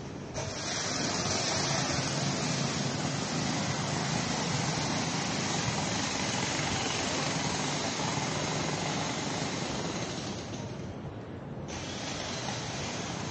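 Steady rushing street ambience with a hiss in it, the hiss dropping away for about a second near the end.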